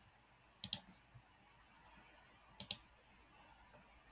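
Two sharp double clicks on a computer, about two seconds apart, over faint room hiss.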